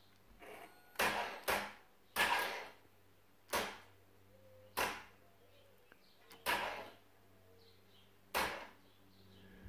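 2017 Can-Am Renegade ATV's starter engaging in short bursts about seven times as the start button is pressed, each cutting off within half a second without the engine catching: the starting fault.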